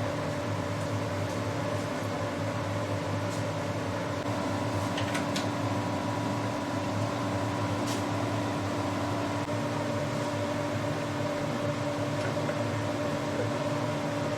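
10-inch bandsaw running unloaded with a steady motor hum, a few faint ticks heard over it.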